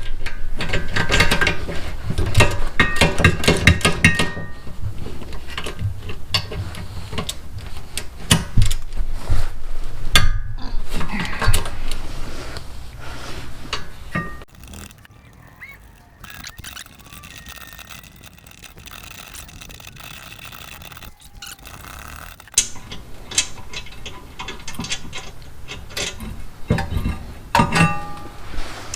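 Hand tools working on the brake assembly: a socket ratchet clicking and metal parts clinking and knocking as the rear caliper bracket bolts are worked loose. The clatter is busiest in the first half and turns quieter and sparser after the middle.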